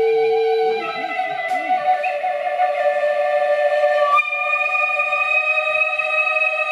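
Live ambient electronic music: several sustained electronic tones held together as a chord, moving to new pitches about a second in and again about four seconds in. In the first two seconds, lower notes slide up and down in short arcs beneath the chord.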